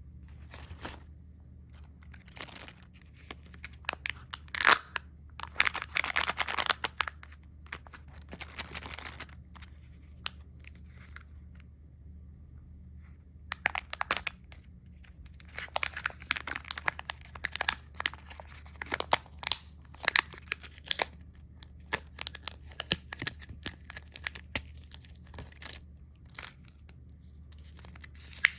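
Plastic candy wrappers being crinkled and torn open by hand: bursts of sharp crackling and rustling, with a pause of a few seconds in the middle, over a faint low hum.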